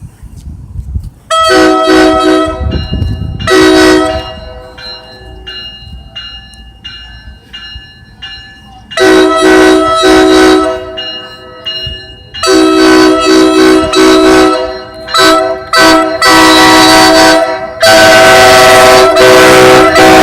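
Train horn sounding a chord of several notes in a horn show: a run of long and short blasts with quieter short toots in between, ending in a long held blast.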